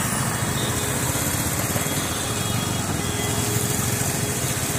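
Small engine running steadily at an even speed, with a constant hiss over it.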